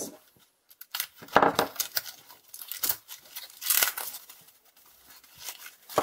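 White foam packing sheet being torn open and unrolled by hand: several irregular rustling, tearing strokes, the loudest about a second and a half in.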